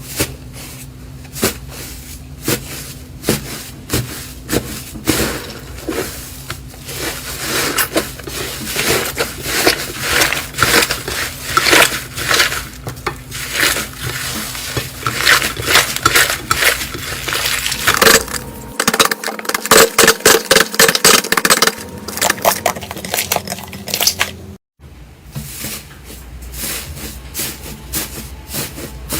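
Hands squeezing and poking slime, making a dense stream of sharp crackling clicks and pops, with sudden changes in the sound about 18 and 25 seconds in as one slime clip gives way to the next.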